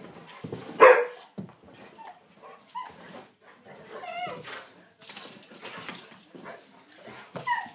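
A bullmastiff and a small dog play-fighting, making dog vocalisations: a loud sudden bark-like cry about a second in, then high wavering whines and yips around four seconds in and again near the end, with noisy scuffles between.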